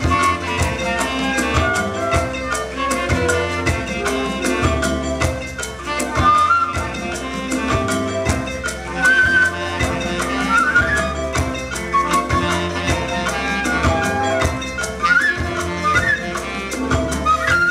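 Live band playing a percussion-driven jazz tune: a flute carries the melody, with slides between notes, over congas and other hand drums, a drum kit with cymbals, keyboard and bass guitar, keeping a steady beat.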